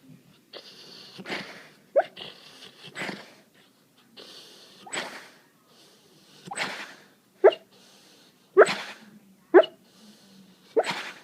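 An animal snoring: a noisy breath about every one and a half seconds, several of them catching in a short, sharp, pitched snort.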